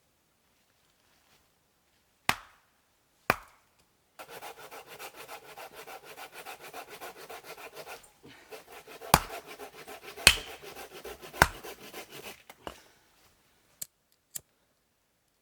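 Firewood being split and worked by hand: two sharp knocks on wood, then several seconds of fast, even scraping strokes on wood, broken by a few more hard knocks, and two light clicks near the end.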